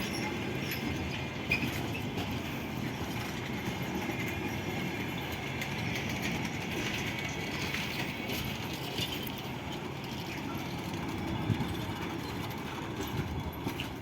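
Passenger train arriving, its coaches rolling past with a steady rumble and scattered clacks of wheels over the rails.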